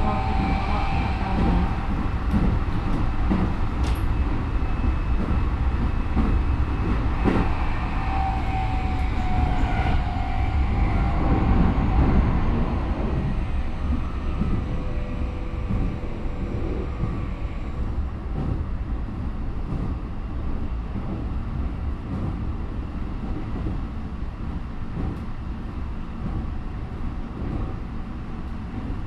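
Onboard running noise of a Keikyu 1000 series EMU: steady wheel and rail rumble with the whine of its Mitsubishi IGBT traction motors, a car noted for unusually loud motor noise much like the early GTO type. The whine shifts in pitch a little before halfway and fades away in the second half, leaving mostly rail rumble.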